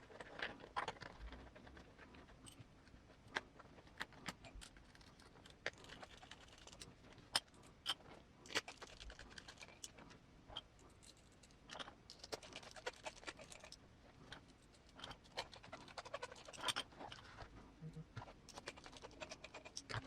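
Scattered light clicks, taps and scratching of hands working a rubber RC crawler tire, foam insert and beadlock wheel during assembly.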